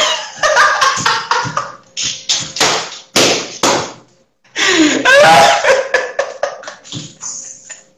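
Two men laughing hard at the punchline of a joke, heard over a video call, in loud broken bursts with a pause about four seconds in. Mixed in are taps and thumps, like a hand slapping a desk.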